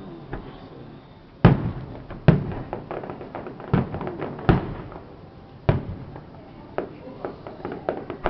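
Fireworks bursting: after a quieter first second, five loud bangs come at uneven intervals over about four seconds, with smaller pops and crackles between and after them.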